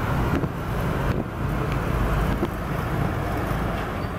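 Road traffic crossing the railway: motorcycle and truck engines running together in a steady low rumble, with a few faint knocks.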